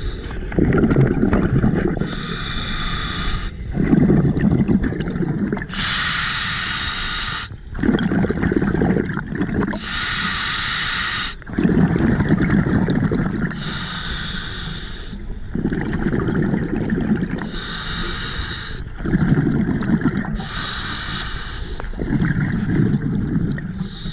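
Scuba diver breathing on a regulator underwater: a hissing inhale through the demand valve alternating with a rumble of exhaled bubbles. About six breaths, one every four seconds or so.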